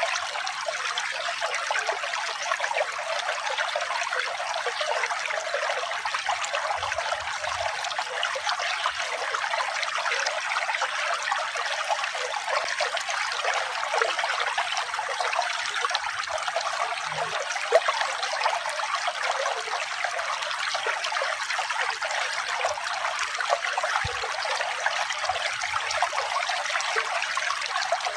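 Running water trickling steadily, an even, continuous splashing hiss.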